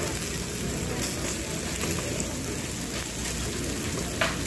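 Pork belly slices sizzling on a hot griddle: a steady crackling hiss, with one short click near the end.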